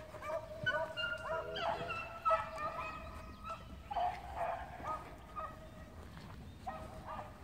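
A pack of beagles baying on a rabbit's trail: several dogs at once, with long, overlapping howling notes.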